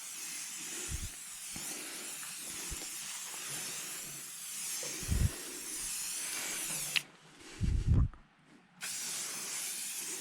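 Aerosol can of SC1 spray hissing steadily as it is sprayed. The spray stops sharply about seven seconds in and starts again nearly two seconds later, with a few faint low thumps.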